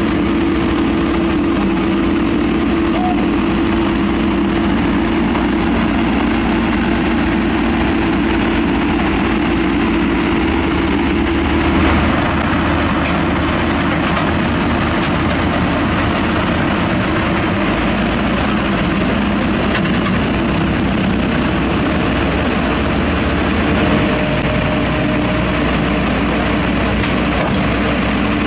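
Komatsu PC200 excavator's diesel engine running steadily under load as the machine tracks onto a self-loader truck's deck, with small swells in level around the middle and near the end.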